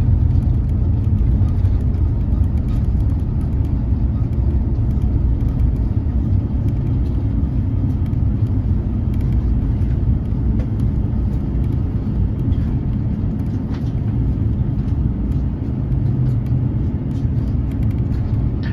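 Cabin noise in an Airbus A350-900 rolling on the ground after landing: a steady low rumble of wheels and engines that slowly eases.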